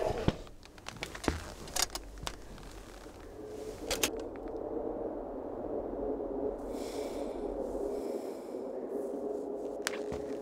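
Wooden knocks and scraping as a floorboard is lifted, several sharp clicks over the first few seconds. After about four seconds they give way to a steady low drone.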